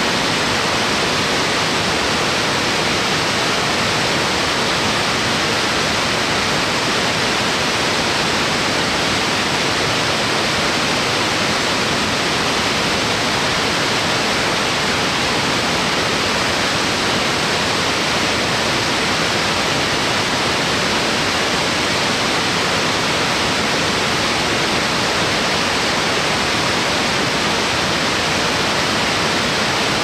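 Fukuroda Falls, a wide tiered waterfall about 120 m high, pouring steadily: an even, unbroken rush of falling water at a constant level.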